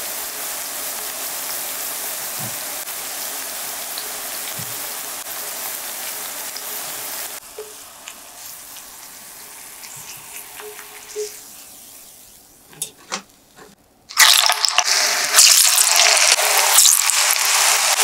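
Banana slices deep-frying in a pan of hot oil, a steady sizzle. The sizzle then drops to a low level, with a few light clicks. About fourteen seconds in, a much louder sizzle starts suddenly as a fresh batch of raw slices goes into the hot oil.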